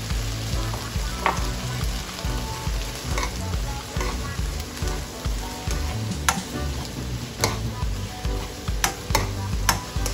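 Diced bell peppers and onions sizzling in oil in a stone-coated wok while a metal spoon stirs them. The spoon scrapes the pan and clinks against it about half a dozen times.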